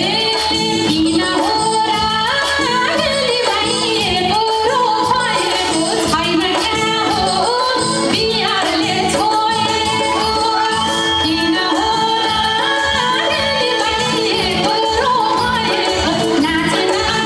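A woman singing a Nepali lok geet (folk song) into a microphone, her melody held and bending, over amplified instrumental accompaniment with a steady beat.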